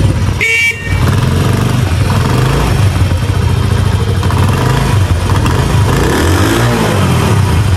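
Small motorcycle engine running, with the revs rising and falling.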